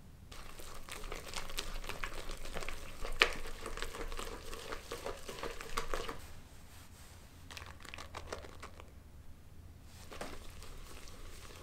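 Silicone-coated balloon whisk beating a thick mixture of creamed butter, sugar and honey in a glass bowl. Quick strokes click against the glass and the batter rustles wetly. It is busiest in the first half, softer after, with a brief pause about nine seconds in.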